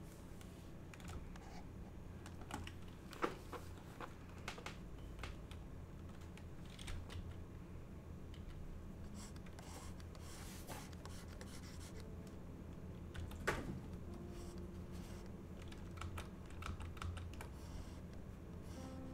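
Irregular clicks and taps of a computer keyboard, scattered a second or more apart, over a steady low hum.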